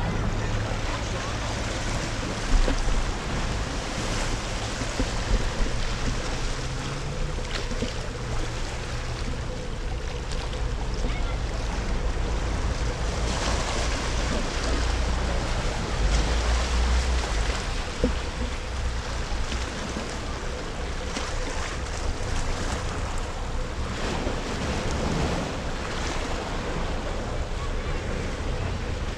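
Small sea waves washing and lapping against granite boulders at the water's edge, with wind rumbling on the microphone.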